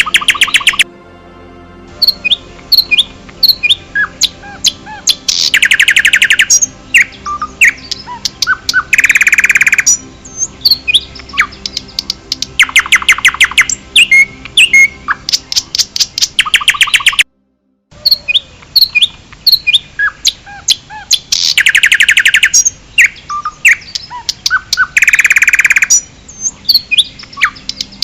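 Several birds singing and calling: repeated fast trills and many short chirps overlapping. The sound cuts out completely for about half a second around 17 seconds in.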